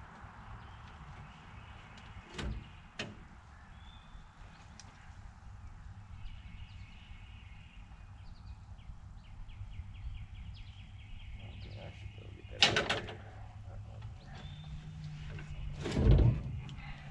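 Scattered metallic knocks and clicks of hand tools working on a log skidder's diesel fuel line, with a short run of quick even clicks in the middle. The two loudest knocks come about two-thirds of the way through and near the end, over a faint low hum.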